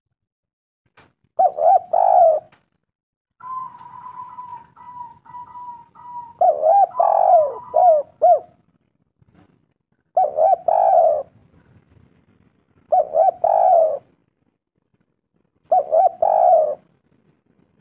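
Spotted dove (tekukur) cooing: five phrases of a few notes each, spaced a few seconds apart. Between the first and second phrases a faint, steady high tone is held for about three seconds.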